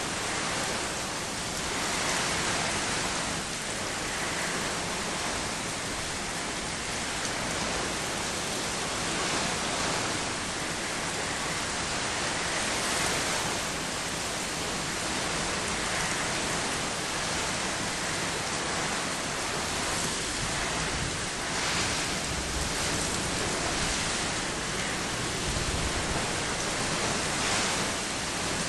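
Heavy rain falling steadily in a summer thunderstorm: a dense, even hiss that swells and eases slightly.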